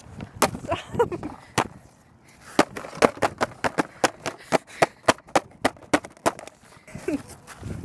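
Hands tapping and knocking on a cardboard box: a quick run of sharp knocks, about five a second, from a few seconds in until near the end.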